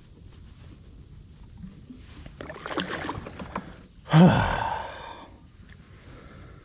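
A man's loud, frustrated exhaled groan about four seconds in, falling in pitch and fading over about a second, after a big fish has come off the line. Before it there is light rustling and clicking as he handles the fishing rod and lure.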